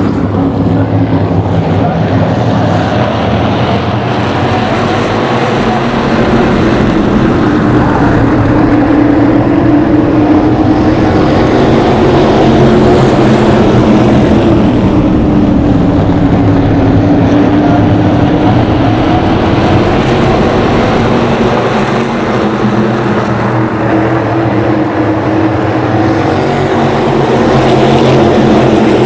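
SK Light modified race cars' engines running hard at speed around a short oval, one continuous loud engine note that slowly rises and falls in pitch.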